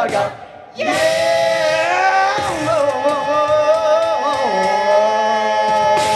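An a cappella vocal group with microphones singing one long held chord in several voices. A lower voice slides down partway through and an upper voice wavers, before all the voices cut off together at the end.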